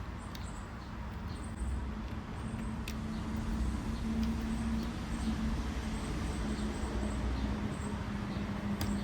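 Light clicks and scraping of a small hand tool working screws and staples out of a plastic car console panel, over a steady low hum.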